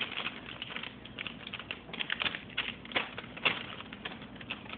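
Plastic ration heater bag crinkling and rustling as the MRE entree pouch is pushed down into it and catches, in quick irregular crackles with a sharper tap about three and a half seconds in.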